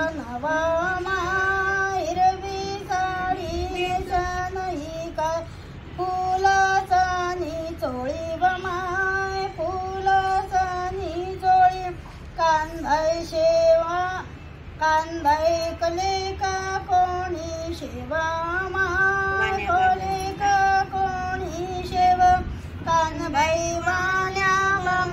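High female voice singing a traditional devotional song to the goddess Kanbai, a melody in short repeated phrases.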